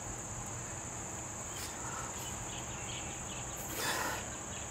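Steady high-pitched chirring of insects, with a brief soft rustle about four seconds in.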